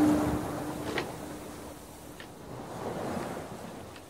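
Ocean waves and wind, a storm-at-sea sound effect, fading out steadily. A low steady tone dies away in the first half second, and there are a couple of faint clicks.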